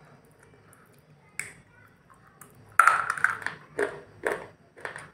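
A crisp bite into a raw vegetable about a second and a half in, then loud close-up crunchy chewing, the crunches coming about every half second.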